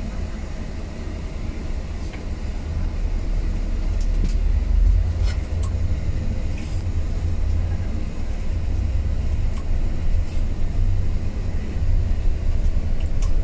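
Steady low rumble of a vehicle driving along a road, heard from inside the cabin, with a few faint clicks and knocks.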